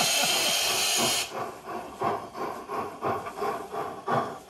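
Sound system of a KM1 model BR 05 steam locomotive: a loud steam hiss that cuts off about a second in, then rhythmic exhaust chuffs at about three a second. The cylinder sounds play from speakers placed at the model's cylinders.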